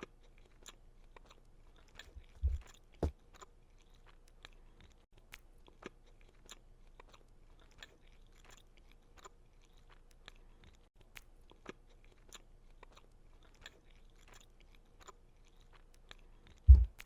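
Close-up chewing of a soft milk chocolate chip cookie: a steady run of small wet mouth clicks. A pair of dull low thumps comes a couple of seconds in, and a louder one near the end.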